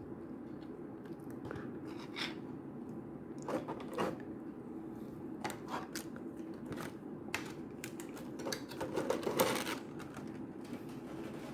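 Light clicks, taps and rustles of a small plastic action figure and its parts being handled, scattered through, with a busier stretch of rustling near the end, over a steady low hum.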